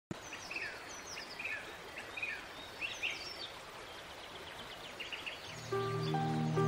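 Birds chirping, short high calls repeated over a faint hiss. About five and a half seconds in, soft new-age music comes in with sustained low notes and held tones.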